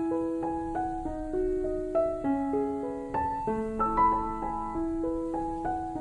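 Soft, slow background piano music: a gentle melody of single notes over fading chords.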